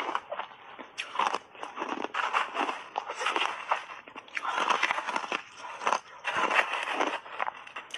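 Shaved ice with milk powder being crunched and chewed in the mouth: a fast run of crisp, irregular crunches, densest in the second half.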